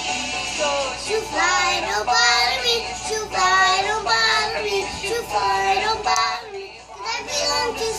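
A young girl's voice singing a pop song, with a short gap a little after six seconds in.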